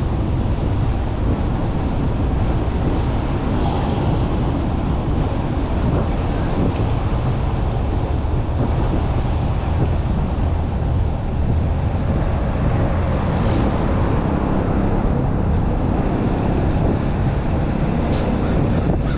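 Steady low wind rumble buffeting the microphone of a moving bicycle rider, mixed with road noise.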